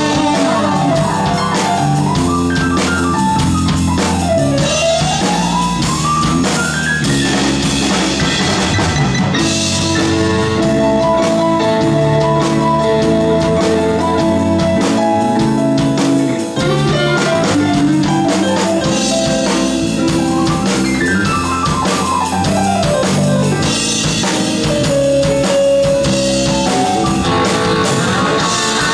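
Live rock band playing: electric guitar, electric bass, drum kit and keyboard together. Fast runs sweep down and back up in pitch near the start and again about two-thirds of the way through.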